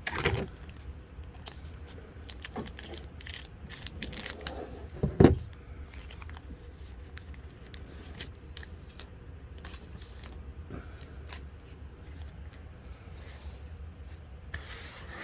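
Trading cards and a foil card-pack wrapper being handled: scattered crinkles, rustles and light clicks, with one louder thump about five seconds in.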